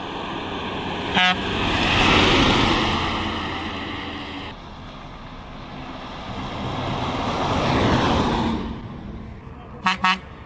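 Buses passing on a highway, each a swelling and fading rush of engine and tyre noise, one peaking about two seconds in and another near eight seconds. A short multi-tone horn toot comes about a second in, and two quick toots come near the end.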